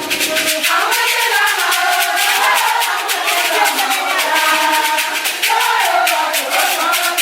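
Music with a shaker keeping a steady, fast rhythm under a wavering sung melody.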